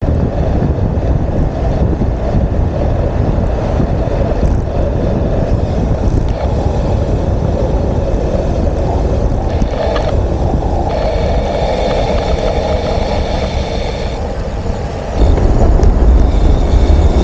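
Wind buffeting the microphone of a camera mounted on a moving bicycle, a loud, heavy rumbling that grows stronger about fifteen seconds in.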